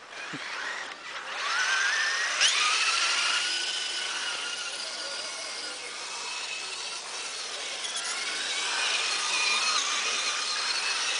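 The motor and drivetrain of an 8x8 radio-controlled truck whining as the truck drives. The pitch glides up sharply about two seconds in, then holds high and wavers slightly.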